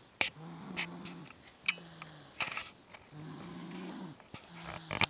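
A baby snoring in deep sleep: a run of short, low snores about one a second, with a few sharp clicks between them.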